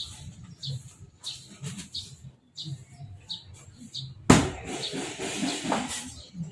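A small bird chirping repeatedly in short high notes. About four seconds in comes one sharp, loud knock, followed by a second or two of clattering noise.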